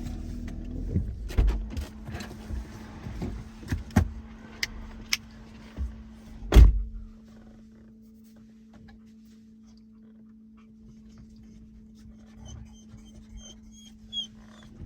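Clicks and knocks of someone getting out of a car, then a car door shut with a heavy thump about six and a half seconds in. Afterwards the closed cabin goes quiet apart from a steady low hum, and a dog gives a few faint high whines near the end.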